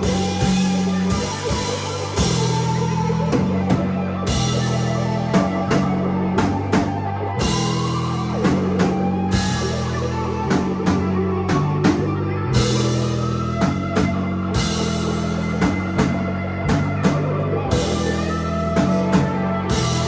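A rock band playing live: drum kit keeping a steady beat under electric guitar and bass.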